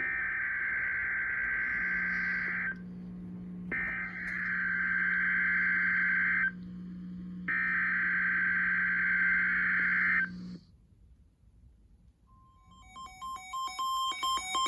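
Emergency Alert System SAME header: three bursts of warbling data tones, each a little under three seconds long and about a second apart, with a low hum beneath them. Near the end a steady tone comes in, followed by electronic keyboard music.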